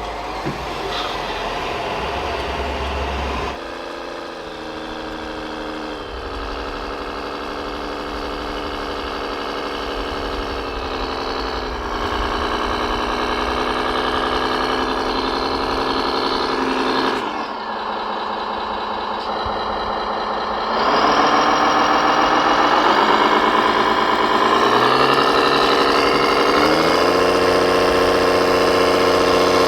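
Radio-controlled model truck or construction machine running, its engine sound and motors humming steadily and stepping up in pitch several times. There is a short drop at about two-thirds of the way through, then it rises and gets louder.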